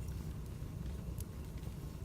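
Wood fire burning: a steady low rumble under a few sparse, sharp crackles, the clearest a little past halfway.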